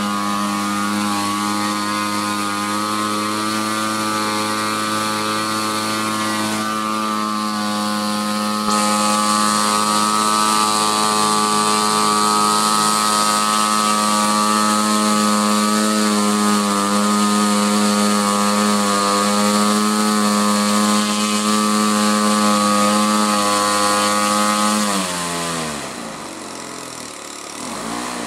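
XYZ 53cc twin-cylinder boxer gasoline engine of a large RC model warbird, turning its propeller through Keleo scale exhaust stacks, running at a steady high speed. About 25 seconds in it is throttled back, the pitch falling quickly to a lower idle, picking up a little near the end.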